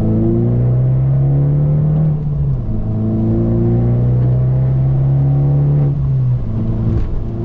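Abarth 595 Turismo's turbocharged 1.4-litre four-cylinder accelerating hard. The engine note climbs steadily through each gear and drops sharply at two upshifts, about two seconds in and about six seconds in.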